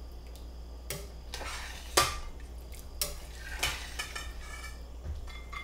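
Metal spoons clinking and scraping as ground-beef sauce is stirred in a stainless pot and seeds are scooped out of a cooked spaghetti squash onto a plate. There are several sharp knocks, the loudest about two seconds in.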